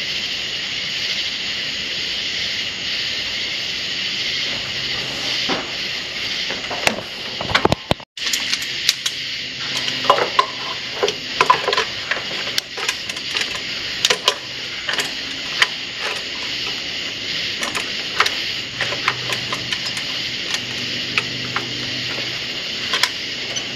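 Metal tools and engine parts clinking and knocking under a truck's hood during hand work at the alternator and accessory belt, over a steady hiss. The clinks come thickly after about a third of the way in.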